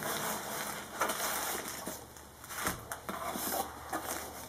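Brown paper parcel being unwrapped by hand: paper and bubble-wrap packaging crinkling and rustling, with scattered small crackles.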